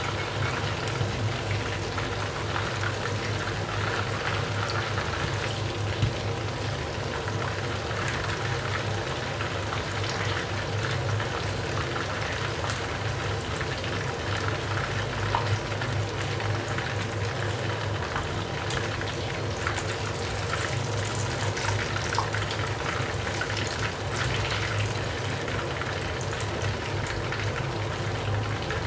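Battered chicken pieces deep-frying in hot oil: a steady sizzle full of small crackles and pops, over a low steady hum.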